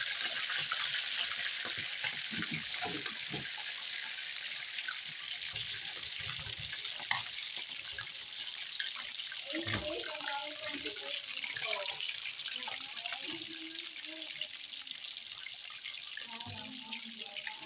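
Chicken pieces deep-frying in hot oil in a wok, giving a steady, even sizzle.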